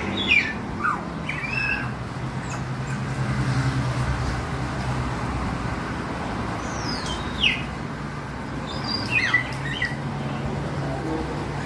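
Short, high chirps that fall in pitch, a few near the start and more around seven and nine seconds in, over a steady low hum.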